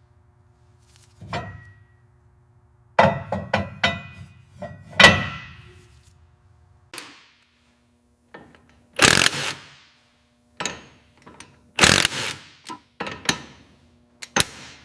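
Workshop tool work on a car: a series of sharp knocks and clanks with short scraping sounds, busiest about three to five seconds in, with louder scrapes later.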